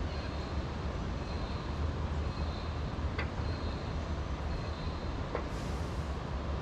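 Steady low rumble of a flooded river running fast, with no pauses or changes.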